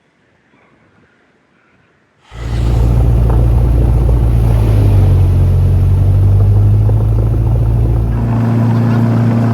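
Cessna 172's piston engine and propeller running steadily at a loud, even drone, cutting in suddenly about two seconds in after a faint stretch. Near the end the deepest rumble falls away and a steadier higher note comes in.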